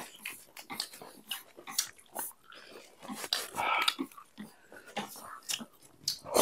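Close-miked eating sounds: chewing with wet mouth clicks and smacks, irregular and scattered, with a louder patch a little past the middle.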